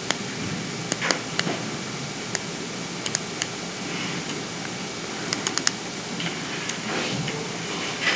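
Scattered light clicks and taps of a pen and hand on a paper notebook over a faint steady hiss. Near the end the pen scratches across the paper, drawing an oval.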